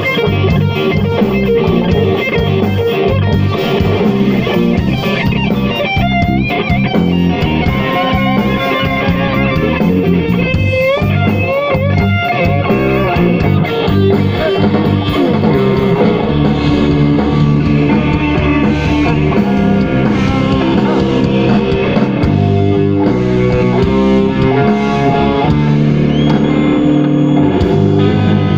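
Live rock band playing loud with electric guitar, bass and drum kit, the lead guitar's notes bending and wavering above the rhythm.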